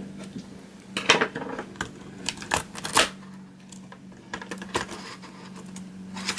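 Plastic keyboard retaining clips of a Dell Latitude 5490 being pried loose with a spudger, with the keyboard rattling in the case: a string of sharp clicks and clatters, busiest about one to three seconds in and again near the end.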